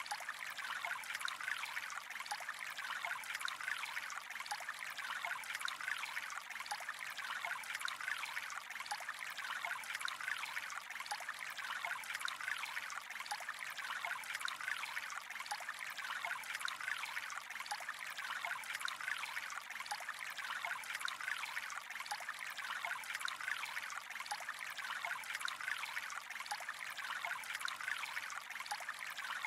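Gentle flowing water trickling steadily, with many small splashes and no breaks.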